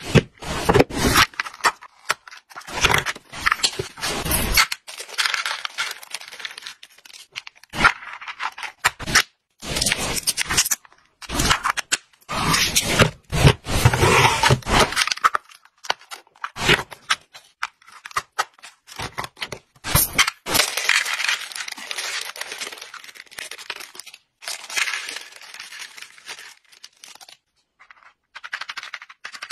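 Small clear plastic snap-lid storage boxes and plastic bags of dried hamster treats being handled: plastic knocking and scraping, a treat bag torn open and crinkled, and hard treat pieces rattling into a box. The sounds come in irregular bursts with short pauses.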